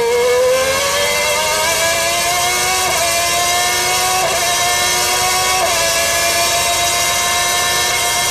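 McLaren Formula One car's Honda V12 engine heard from on board at full throttle. Its pitch climbs steadily, with quick upshifts about three seconds in and again near six seconds.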